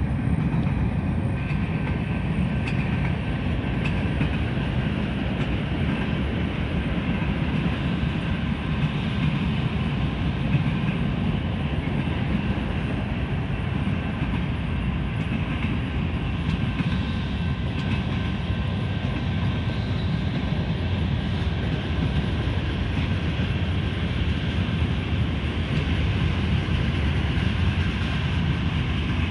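A train rolling past: a steady, loud rumble of rail cars on the track, unchanging throughout.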